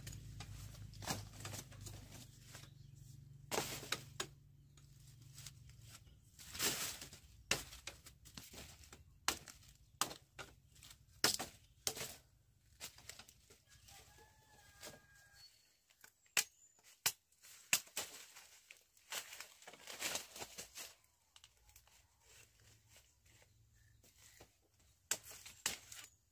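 Sugarcane being harvested by hand: irregular rustles, snaps and knocks of stalks and dry leaves being cut and stripped, with a chicken calling briefly about halfway through.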